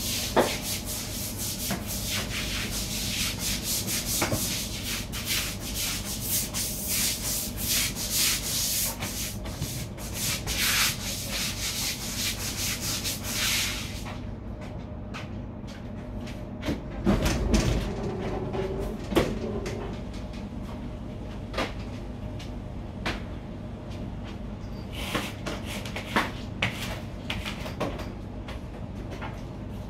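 Dense scratchy scrubbing or rubbing noise on a surface close by, which stops abruptly about fourteen seconds in. After that, a steady low kitchen-equipment hum remains, with scattered clicks and knocks, the loudest a short cluster about seventeen seconds in.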